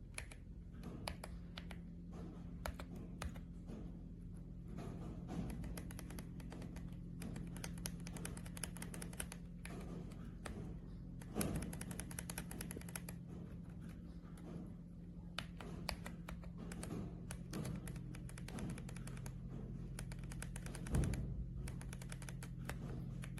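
Typing on a mechanical keyboard fitted with Gateron Ink v2 linear switches: quick, irregular keystroke clacks, over a faint steady low hum.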